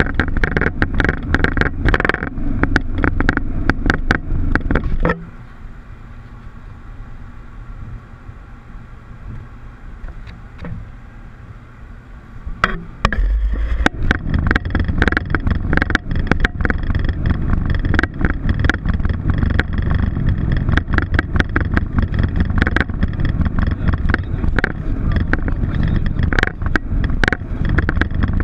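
Loud rumbling noise inside a Boeing 737 cockpit, with many rapid rattles and knocks. It drops to a quieter level about five seconds in and comes back loud about eight seconds later.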